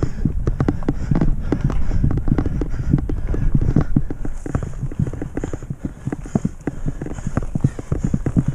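Mountain bike rattling over a rough forest singletrack: a dense, irregular clatter of sharp knocks as the bike jolts over roots and bumps, over a steady low rumble of tyres and wind.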